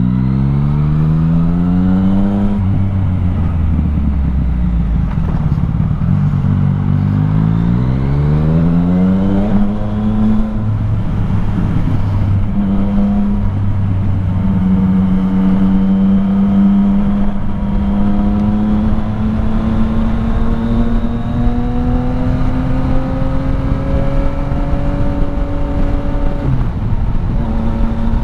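Yamaha MT-09 Tracer 900's inline three-cylinder engine through an Akrapovic exhaust, revving up twice under acceleration in the first ten seconds. It then runs at steady cruising revs that climb slowly, with a short dip near the end.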